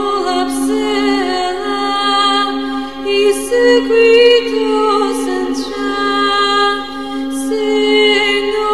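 Background music: a steady low drone held under slowly shifting, sustained melody lines.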